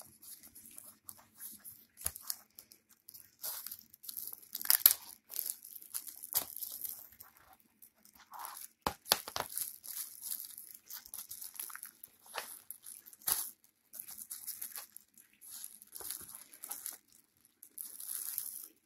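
Plastic shrink wrap being torn and crinkled off a DVD box set, with irregular crackles and rustles throughout.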